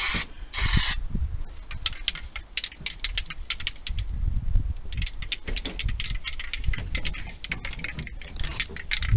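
Aerosol can of rubberized coating spraying in one short hiss about half a second in, followed by rapid, irregular clicking that fits the can being shaken with its mixing ball rattling.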